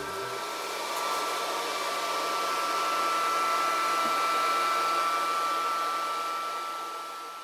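Steady fan-like rushing noise with a steady mid-pitched tone and a faint low hum, swelling slightly after about a second and fading out near the end.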